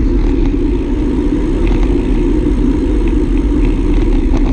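Steady wind rush over a handlebar-mounted camera's microphone, with tyre and road noise, while a bicycle is ridden at speed.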